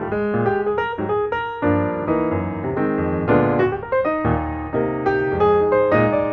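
Background piano music: a continuous run of struck notes and chords.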